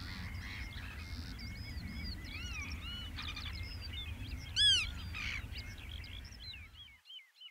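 Meadow birds calling, many short chirping and arched calls overlapping, over a steady low rumble; one loud call stands out about four and a half seconds in. The rumble cuts off abruptly near the end, leaving a few fainter calls.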